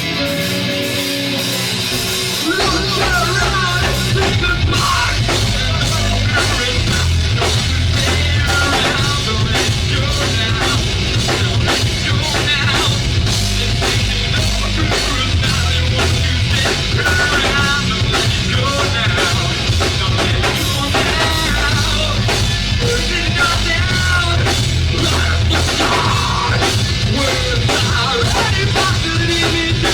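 Live rock band playing loudly. At first an electric guitar plays almost alone; about two seconds in the drums and bass come in and the full band carries on at a steady driving level.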